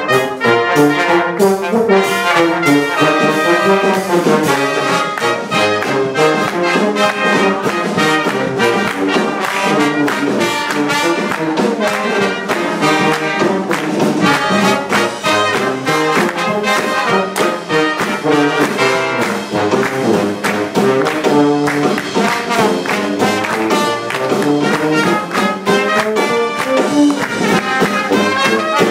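A brass group of two trumpets, trombone and tuba playing a lively tune together, with a drum kit keeping the beat.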